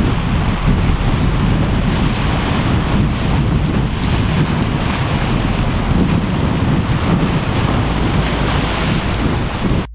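Sea surf breaking and washing over rocks, steady and loud, with wind buffeting the microphone as a low rumble.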